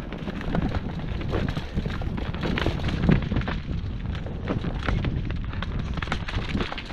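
Mountain bike riding fast down a rough dirt trail: a continuous rumble of tyres over dirt, roots and rocks with frequent sharp knocks and rattles from the bike, the hardest about three seconds in, and wind buffeting the microphone.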